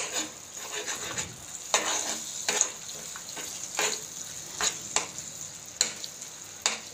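Eggs sizzling in hot oil in a non-stick frying pan while a metal spoon breaks them up and stirs them, scraping the pan about once a second over a steady sizzle.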